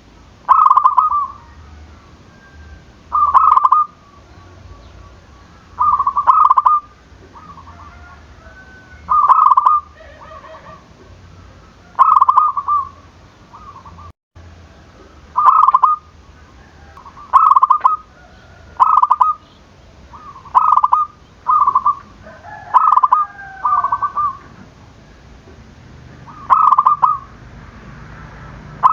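A zebra dove (perkutut) cooing, a dozen or so short, loud coo phrases spaced one to three seconds apart. Fainter gliding calls join in about two-thirds of the way through.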